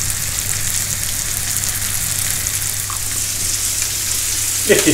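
Floured John Dory fillets frying in butter in a pan, a steady sizzle with fine crackling.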